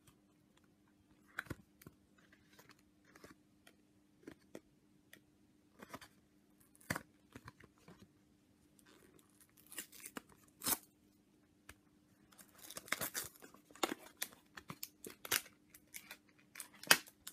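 Plastic blister packaging of a memory card being handled, cut and torn open. Irregular clicks, snips and crackles grow busier and louder in the second half.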